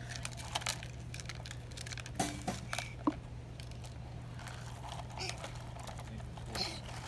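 Plastic toy trucks pushed and set down on gravel: scattered light clicks, knocks and pebble crunches, over a steady low hum.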